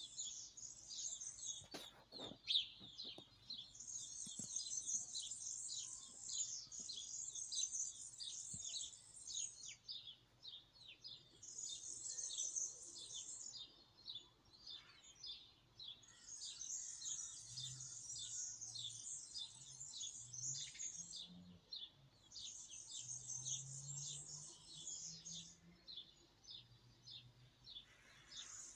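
Small birds chirping and twittering, high and rapid, in runs of a second or two with short pauses between them.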